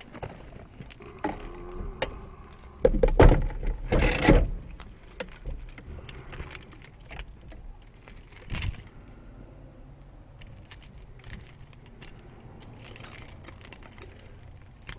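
Clatter of small clicks and rattles, loudest in a cluster of bursts about three to four and a half seconds in and once more near nine seconds.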